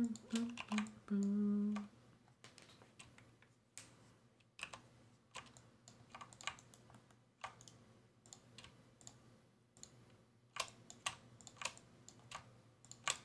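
Computer keyboard keys and mouse buttons clicking at an irregular pace, like someone working keyboard shortcuts and selecting with a mouse. A short wordless vocal hum is heard in the first couple of seconds.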